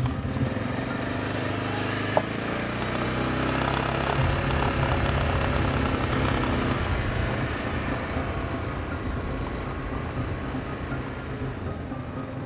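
Engine of a Polaris side-by-side utility vehicle running as it drives along a dirt track. The engine note shifts about two and four seconds in, grows a little louder midway and then eases off. A brief click comes about two seconds in.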